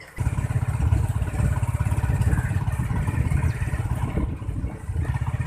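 Motorcycle engine running while being ridden, a steady rapid low pulsing that comes in abruptly just after the start.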